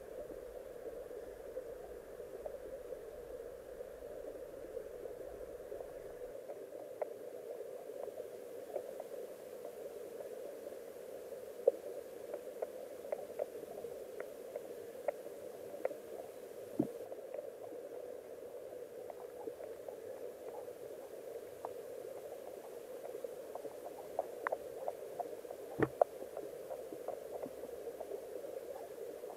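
Underwater sound of a flowing river picked up by a submerged camera: a steady muffled rush of current, with scattered sharp clicks and ticks, the loudest about twelve seconds in and again near the end.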